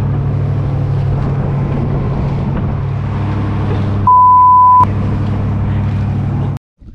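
Fishing boat's engine running with a steady low drone. About four seconds in, a loud single censor bleep lasting under a second blots out the audio, covering a swear word. The sound cuts off suddenly near the end.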